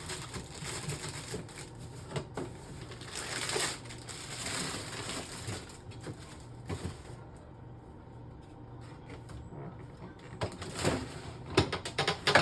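Plastic produce bags rustling and crinkling as peppers and a cabbage are pushed into a fridge, then several sharp knocks near the end as items bump against the shelves.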